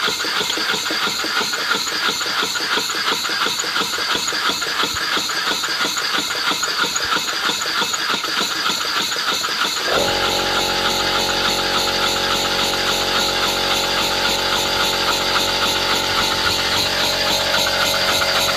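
Homemade single-cylinder, double-acting model steam engine running on compressed air, with a fast, even beat of exhaust puffs as the flywheel spins. About halfway through, a steady hum joins the beat.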